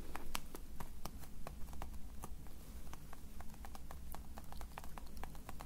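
Light, irregular taps and clicks of hands handling or tapping on small objects, several a second.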